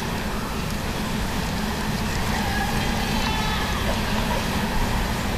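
Steady static noise in the recording: an even hiss with a heavier low rumble, unchanging throughout.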